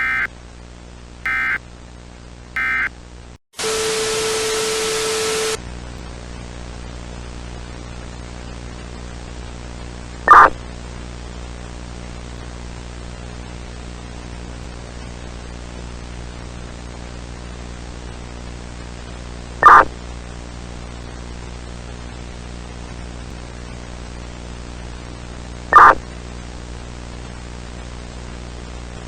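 Three short bursts of EAS digital header tones, the end-of-message code closing the alert. Then comes a two-second burst of loud static carrying a steady low tone, and a steady hiss of static with hum, broken by three loud, brief noises about ten, twenty and twenty-six seconds in.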